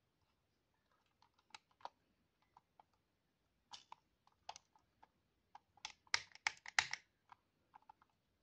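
Small plastic clicks and taps from a toy and its packaging being handled: scattered single clicks, then a quick run of sharper clicks about six to seven seconds in.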